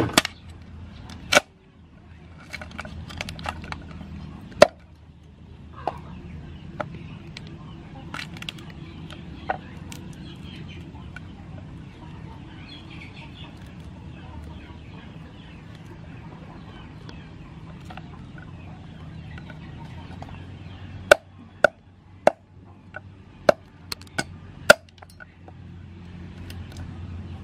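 Heavy steel cleaver chopping mud crab on a thick wooden chopping block: two sharp chops in the first five seconds, then a quick run of about six chops near the end, with fainter cracking and handling of the crab shell in between.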